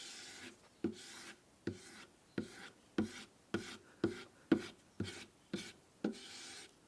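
Schrade SCHF37 knife blade being dragged along a leather strop charged with white polishing compound: about ten quick strokes, each a light tap as the blade meets the leather, then a short scraping hiss.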